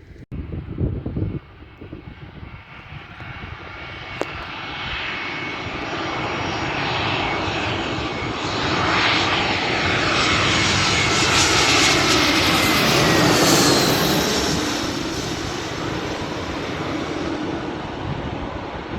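Airliner's engines passing close by: the engine noise swells over several seconds, is loudest midway with whines that drop in pitch as it goes past, then fades. A short gust of wind on the microphone comes about a second in.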